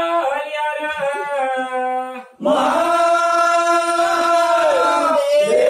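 A group of men chanting a Hindu devotional bhajan together in long held notes. The singing breaks off briefly a little under halfway, then resumes on long sustained notes.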